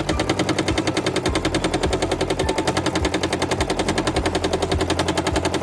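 Domestic sewing machine with a hopping foot running fast for free-motion quilting, making a rapid, even clatter of stitches. It is run fast so the curves come out in many small stitches.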